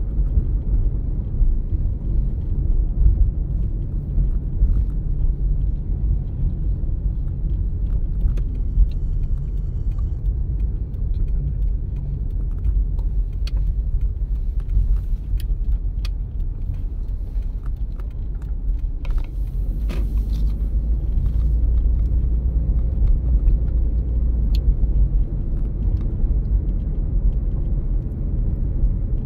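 Steady low rumble of a car driving along a street, heard from inside the car: engine and tyre road noise, with a few faint ticks and a brief louder rush about two-thirds of the way through.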